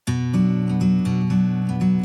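Background music begins abruptly out of silence: a strummed acoustic guitar playing chords, with strokes about twice a second.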